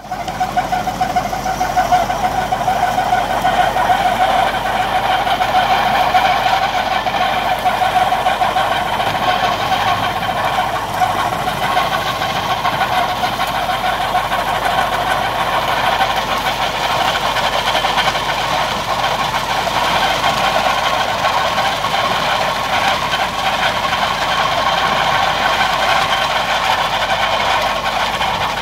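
Farm tractor engine running steadily while driving a trailed Özyeşilyurt solid-manure spreader, its rear beaters throwing manure out. A steady high whine runs through it.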